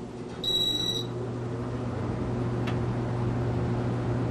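Casablanca Panama ceiling fan motor running with a steady hum, getting a little louder after a short electronic beep about half a second in as the Inteli-Touch control switches it to high speed. The motor's worn bearings are not clattering at this moment.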